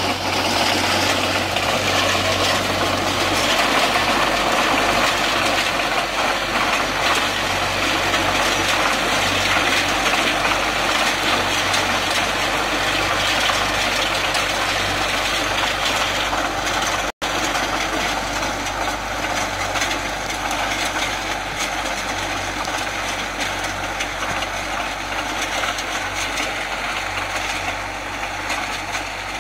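IMT 577 tractor's diesel engine running steadily under load, driving a Maschio rotary power harrow whose tines churn through the soil. The sound drops out for an instant about seventeen seconds in.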